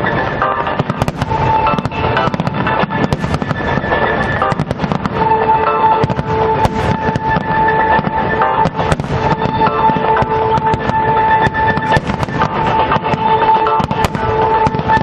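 A fireworks display going off in rapid succession, many bursts and crackles packed close together, with music playing long held notes over them.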